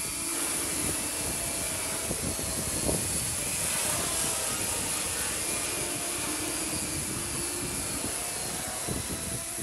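Small quadcopter drone's rotors whirring steadily as it flies, the pitch shifting slightly as it manoeuvres, mixed with the rushing noise of a large fire.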